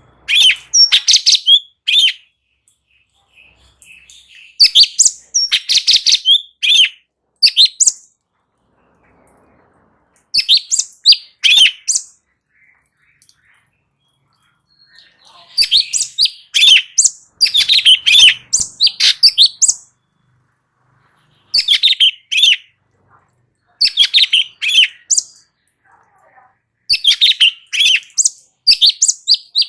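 Cucak cungkok singing in full song: phrases of one to two seconds made of rapid high notes, repeated again and again with short pauses between them.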